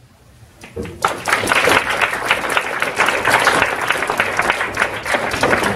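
Audience applauding: a few scattered claps, then full applause from about a second in.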